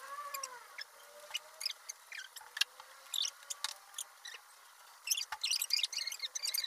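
Irregular sharp crackles and clicks, growing dense near the end, with a faint wavering tone in the first second.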